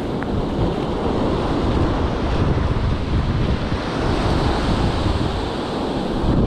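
Surf washing up the beach, with wind buffeting the microphone in a steady, rough rumble.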